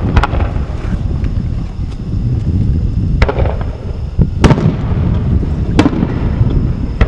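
Aerial firework shells bursting in the sky: four sharp bangs over a few seconds, the later three closer together, over a steady low rumble.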